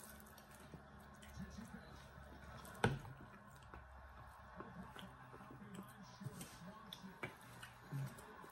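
Quiet eating sounds: scattered mouth clicks and wet smacks while plastic food wrap is handled, with one sharp click about three seconds in.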